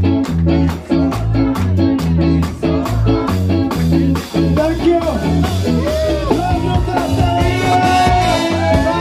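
Live ska band playing: drum kit, bass and electric guitar on a steady beat, with a singer's voice coming in around the middle.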